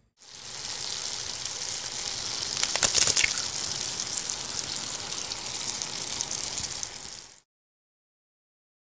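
Steam-and-sizzle sound effect of an intro animation: a steady hiss like food sizzling or a pot steaming, swelling about three seconds in, then stopping after about seven seconds.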